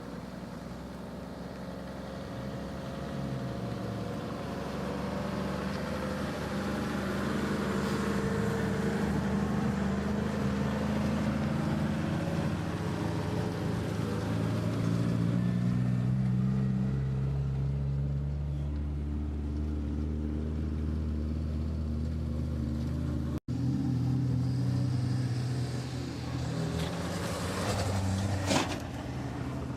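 Renault Super 5 car engines running and revving, their pitch rising and falling over several seconds, with a sharp knock near the end.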